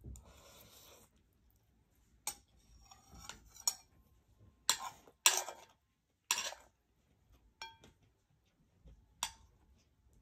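Cutlery clinking and scraping against a plate during a meal: about seven separate sharp clinks, with one ringing briefly about three-quarters of the way through.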